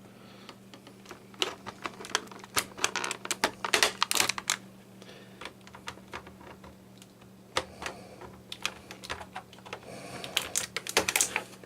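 Irregular light plastic clicks and rustling as a plastic action figure and its packaging are handled, with busier flurries of clicks around three to four seconds in and again near the end.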